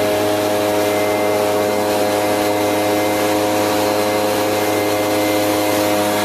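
A steady mechanical hum holding several constant tones, even in level throughout.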